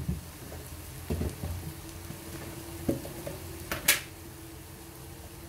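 Chopped onions frying in oil in a kadai, a low steady sizzle, with a few knocks and one sharp click about four seconds in as plastic spice containers are handled.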